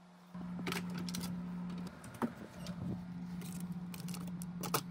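A steady low electrical hum that starts a moment in and dips briefly about two seconds in, with a handful of light clicks and knocks over it.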